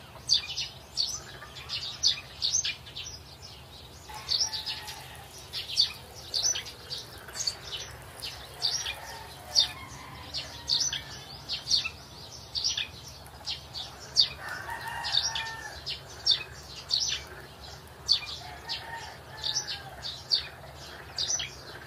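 Small birds chirping in a busy, continuous chorus of short, high chirps, several a second.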